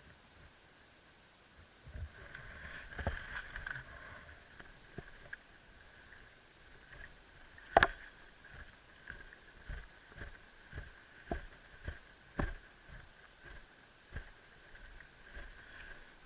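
An uneven run of soft thumps and rustling, busiest a couple of seconds in, with one sharp loud click about eight seconds in.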